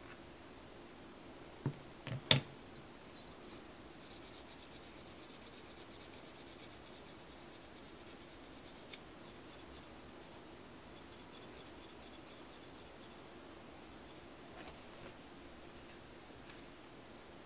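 A pink cuticle stick scraping and pushing along the fingernails, a faint fast scratching like writing, after one sharp knock about two seconds in. Near the end a cloth rubs softly over a nail.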